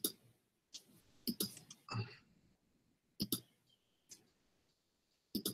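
Irregular short clicks, about seven over a few seconds, with silence between them, picked up by a video-call microphone.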